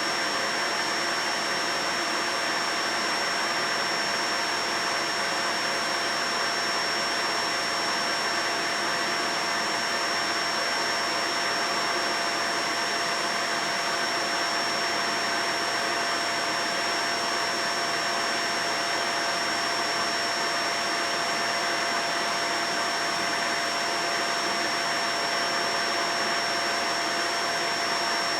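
Vacuum cleaner running steadily, a constant rushing hum with a high whine held at one pitch.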